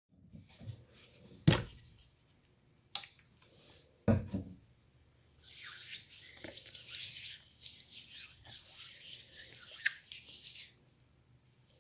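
Two chalk-dusted palms rubbing together, a steady dry hiss lasting about five seconds in the second half. Before it, a couple of sharp knocks, the loudest sounds here.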